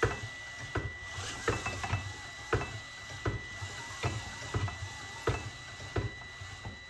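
Cordless drill spinning a Briggs & Stratton lawn-tractor engine over by its flywheel, the drill motor whining steadily. A regular click about every three-quarters of a second comes from the engine as it turns, its crankcase open to check the camshaft and valve timing.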